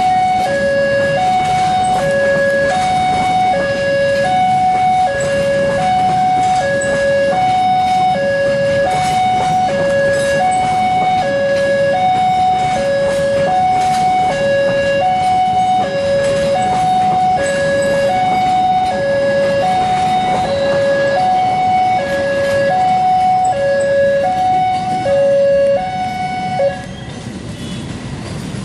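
Railway level-crossing warning alarm sounding an electronic two-tone signal, high and low tones alternating, each about a second long, over the low rumble of a passing train. The alarm stops near the end as the last coach clears the crossing.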